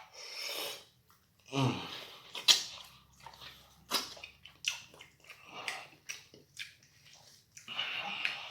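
Close-miked wet chewing and lip smacking while eating BBQ ribs, with irregular sharp smacks and clicks.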